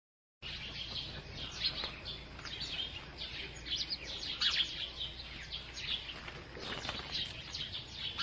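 Birds chirping: many short, quickly falling calls overlapping in a dense chorus, starting about half a second in.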